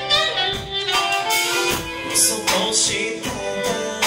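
Live band music: a man singing into a microphone over saxophone, electric guitar and drums.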